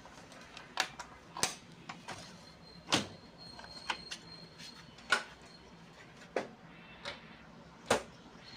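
Irregular sharp clicks and knocks, about ten over several seconds, as the Xerox WorkCentre 5855 fuser (heater) unit is handled and refitted after its upper roller change.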